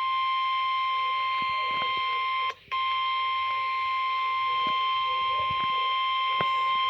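Emergency Alert System attention tone played over an AM/FM radio: a single steady, piercing tone that cuts out for a moment about two and a half seconds in. It signals the severe thunderstorm warning that follows.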